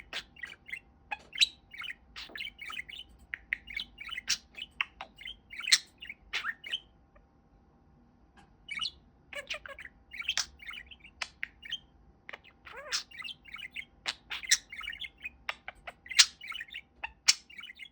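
Budgerigar chattering and warbling: a rapid run of short chirps and squeaky notes, pausing for about two seconds midway before starting up again.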